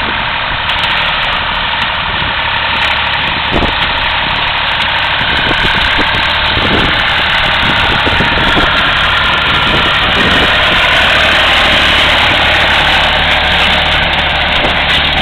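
Baler running: a steady, loud engine-driven drone with irregular knocks and clatter from the machinery.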